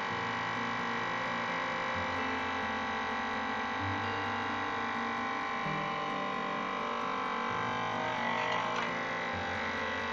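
Electric vacuum sealer running: a steady motor whine as it draws the air out of a plastic bag holding a whole chicken, with some rougher crackle near the end as the bag tightens.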